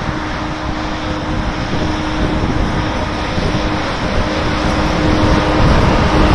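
Electric locomotive E-1303 running past close by at the head of a freight train: a steady rumble of wheels and running gear with a steady hum, growing a little louder near the end as it draws level.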